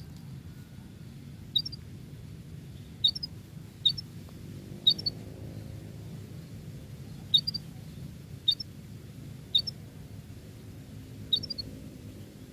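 Domestic canary giving short, sharp, high chirps, about eight of them at uneven spacing of a second or two, each a quick upward flick in pitch. A steady low hum runs underneath.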